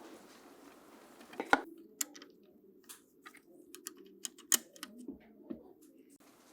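Irregular small clicks and taps, the sharpest about one and a half seconds in and another near four and a half seconds.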